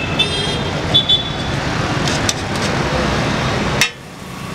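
Steady street traffic noise, with short metallic clinks of a steel spatula scraping on a flat iron griddle near the start and about a second in. A sharp click comes near the end, and the noise then drops suddenly.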